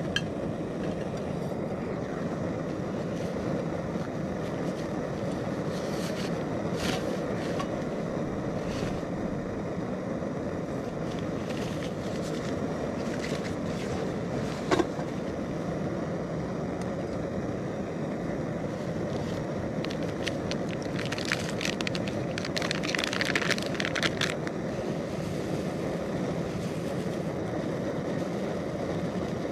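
Primus Omnifuel stove burner running steadily under a Trangia coffee kettle. There is a single clink about halfway through, and a spell of crinkly rustling from handling the backpack about three quarters of the way in.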